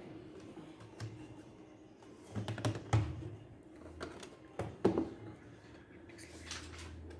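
Scattered clicks and knocks of hands working on a laptop, a cluster about two and a half seconds in and two more near five seconds, over a low steady hum.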